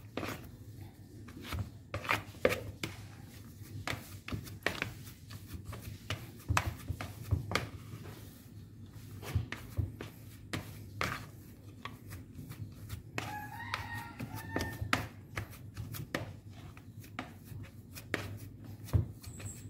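Plastic rice paddle scraping, slapping and tapping against a plastic bowl as a thick bait dough is mixed and pressed, in irregular short clicks and scrapes. A short pitched call sounds about two-thirds of the way through.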